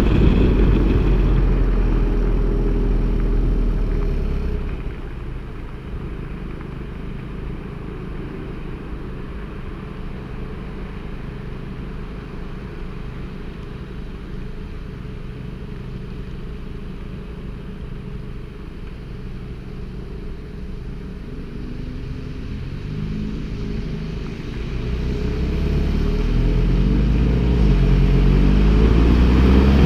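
Seat Altea running through an aftermarket eTuners exhaust: the engine note falls and quietens as the car slows, drones steadily for a while, then climbs again as it accelerates, loudest near the end.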